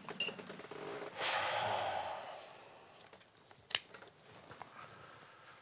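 A man breathes out heavily, a breathy sigh or snort that is the loudest sound, about a second in. A small click comes just after the start and a single sharp click comes a little past halfway, as the phone on its gimbal is handled.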